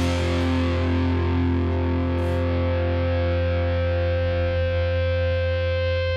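Distorted electric guitar held ringing through effects over a steady low drone, with no beat; the bright top of the sound slowly fades while the held tones carry on.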